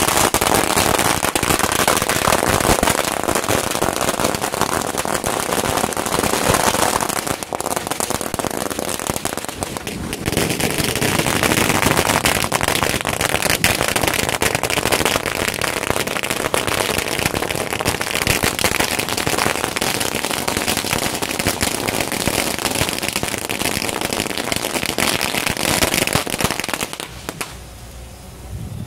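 Firecrackers going off in a dense, continuous barrage of rapid bangs. Near the end the barrage drops away suddenly, leaving a quieter crackle.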